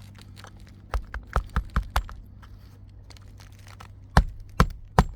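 Hammer driving roofing nails into an asphalt shingle: a quick run of about six light taps about a second in, then harder, evenly spaced blows from about four seconds in, roughly two or three a second.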